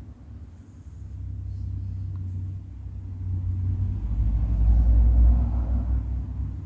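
A low rumble that swells over a few seconds and is loudest about five seconds in.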